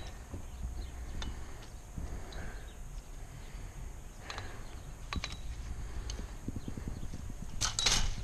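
Scattered sharp knocks and clicks, with a quick cluster of them near the end, over a steady low rumble.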